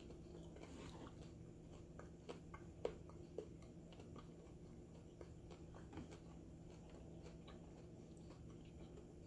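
Faint mouth sounds of a man chewing a 7 Pot Jonah × Pimenta de Neyda chili pepper pod: a few soft clicks, the loudest about three seconds in, over a low steady room hum.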